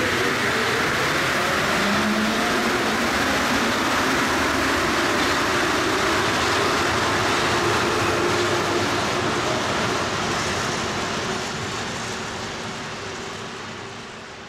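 Paris Métro MP59 rubber-tyred train pulling out of a station. Its motor whine rises in pitch as it picks up speed, and the sound fades as it runs into the tunnel in the last few seconds.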